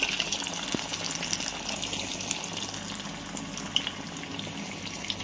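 Carrot vadas deep-frying in hot oil in a kadai: a steady sizzle with many small crackles and pops.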